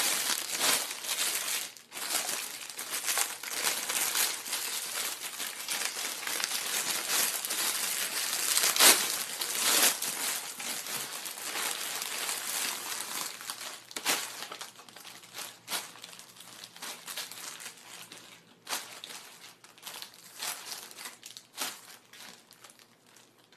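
Plastic packaging bag crinkling and rustling as it is handled and opened: a dense, continuous crinkle for the first half, then sparser, fainter crinkles.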